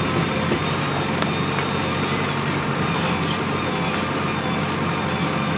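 Diesel engine of a JCB 3DX Plus backhoe loader running steadily while it works, an even low hum with no clear revving or knocks.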